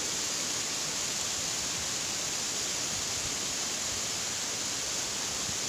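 Steady, hissing rush of a tall waterfall pouring down a rock face and over rock ledges into a pool.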